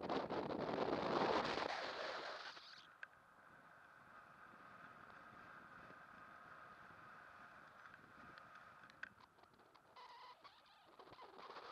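Wind rushing over a paraglider's body-mounted camera microphone in flight. The rush is loud for the first two seconds or so, then settles to a softer steady rush with a faint high steady tone, and swells again near the end.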